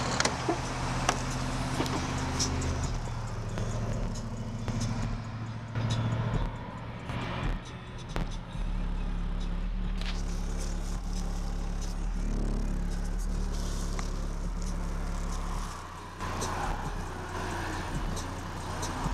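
Skar Audio VXF-12 D2 12-inch subwoofer in a car's cargo area playing bass-heavy music: deep, sustained bass notes that change pitch every few seconds.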